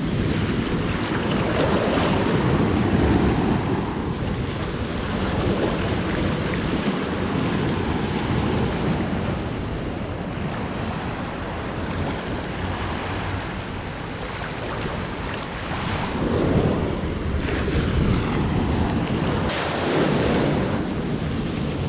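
Small sea waves breaking and washing over a pebble shore, the surf churning right around a microphone held at water level and at times dipped into it. The wash swells and eases every few seconds.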